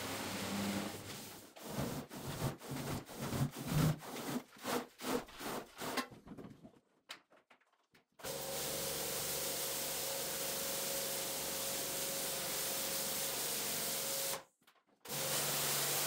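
Rhythmic cleaning strokes on a rug, about three a second, then a break and a steady rushing noise with a faint hum.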